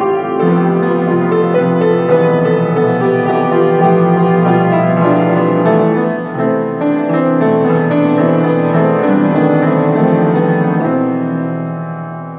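Acoustic grand piano played, with chords under a melody line; near the end the final chord is held and dies away.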